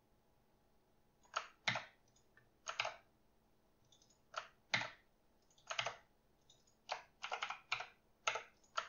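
Typing on a computer keyboard: short, sharp keystroke clicks in irregular clusters, starting about a second and a half in.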